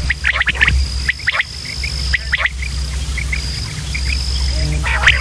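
Quail calling in short bursts of sharp, quick notes, three or four times. An insect's steady high trill comes and goes behind them, over a low hum.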